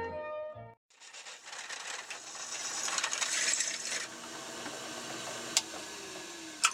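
A drill press bit grinds into steel as it drills out the welded pop rivets holding a pair of metal table slides together. A couple of sharp metallic clicks come near the end.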